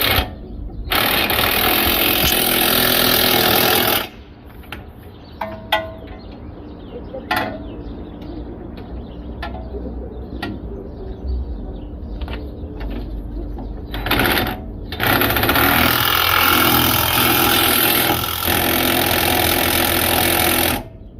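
Impact wrench running in long bursts, tightening the suspension bolts on a new shock and sway bar link. There is a burst of about three seconds, a short one near the middle, and a longer one of about six seconds, with a few metallic clicks between them.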